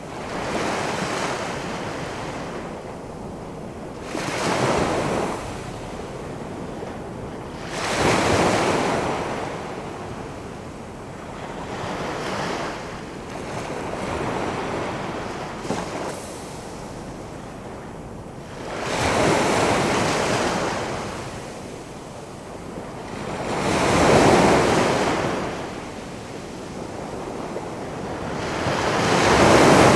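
Big ocean waves rolling in and crashing one after another, a swelling surge every few seconds over a steady wash of surf. The loudest breaks come about a quarter of the way in, past the middle, and at the end.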